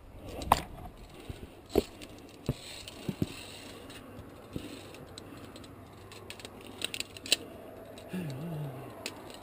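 Via ferrata carabiners clinking and clicking against the steel safety cable and their fittings as they are handled, in a scattering of sharp metal clicks with gaps between them.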